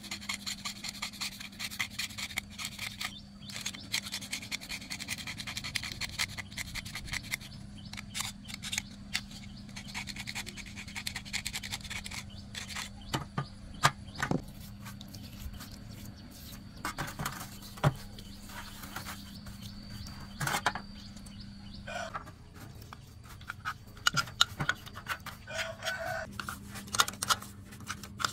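A metal scraper scraping the face of a flange from a 4102 high-pressure pump in rapid short strokes for about the first twelve seconds, then scattered clicks and knocks as the part is handled. A steady low hum runs underneath.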